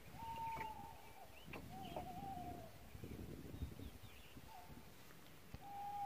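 An unidentified animal's clear whistled calls, repeated several times, each about half a second to a second long. Most hold one pitch and bend downward at the end, one wavers up and down, and fainter higher squeaks come between them, over low rustling.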